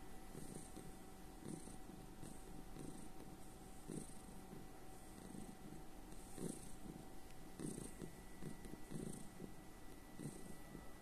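Tabby cat purring contentedly while its head is stroked. The low purr swells and fades about once a second.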